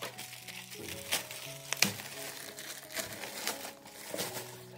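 Plastic LDPE courier mailer bag crinkling and crackling in irregular bursts as it is handled and opened, with the sharpest crackle about two seconds in. Background music plays underneath.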